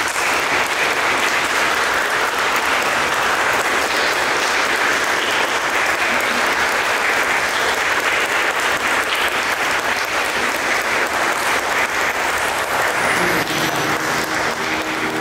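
A small crowd of guests in a church applauding with steady hand clapping.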